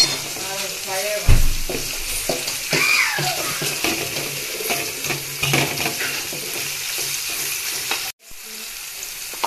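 Sliced onions and green chillies sizzling in hot oil in a metal pot, stirred with a metal ladle that scrapes and knocks against the pot. The sizzle cuts out for a moment near the end, then resumes more quietly.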